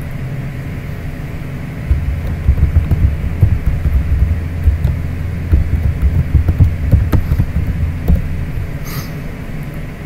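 Steady low hum; from about two seconds in to past eight seconds it turns into a louder, uneven low rumble, and a short click comes near the end.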